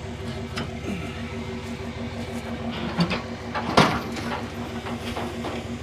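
Metal knocks and clanks from a round-bale trailer's unloading arms as they are released and swing up, the loudest about two-thirds of the way through, over a steady mechanical hum.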